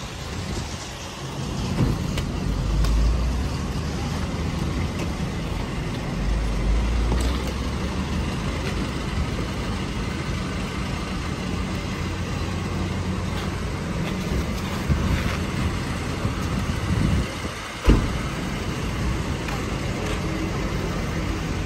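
Passenger van engine idling with a steady low hum, two brief gusts of wind buffeting the microphone, and a single loud thump about eighteen seconds in.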